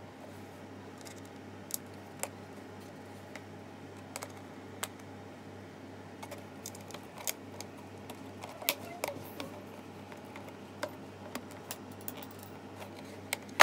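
Hard plastic clicking and tapping as small black plastic clips are pressed onto the back of a grey plastic toy bus-stop panel. The clicks are sharp and irregular, with a few louder ones in the second half, over a steady low hum.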